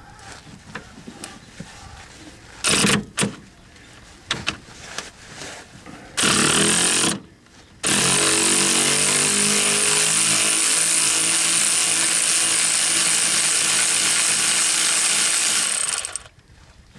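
Power tool on a 13 mm socket and long extension, unscrewing the bolt at the steering linkage coupler: two short bursts, another about six seconds in, then a steady run of about eight seconds that stops abruptly near the end.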